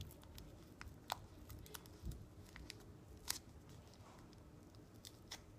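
Sticker packet being carefully peeled apart by hand: faint crinkles and scattered small ticks of the wrapper, sharpest about a second in and again past three seconds.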